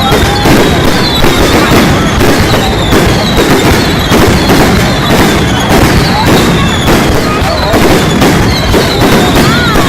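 Fireworks display going off: a dense, unbroken run of bangs and crackling, loud throughout.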